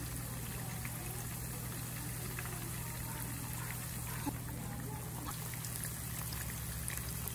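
Shrimp, sliced garlic and chilli simmering in olive oil in a frying pan: a steady sizzling hiss with small crackles and pops, over a steady low hum.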